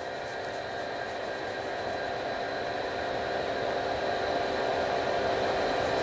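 1989 Pelonis disc furnace, a fan-forced ceramic disc space heater, running on its lowest heat setting: a steady fan whir and airy hiss with a hum under it, slowly growing louder.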